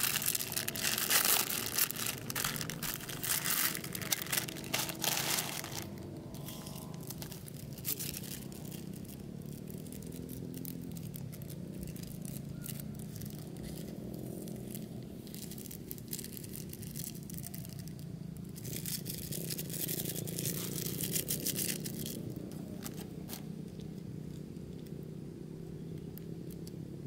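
Plastic instant-noodle packets and small foil seasoning sachets crinkling and being torn open, loudest and densest in the first six seconds, then lighter, scattered rustling. A low steady hum runs underneath.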